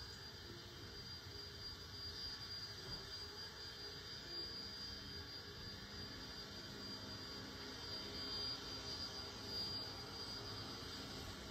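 Stationary Soo Line 1003 steam locomotive idling: a steady low rumble and hiss with a thin, constant high whine over it and a few faint ticks.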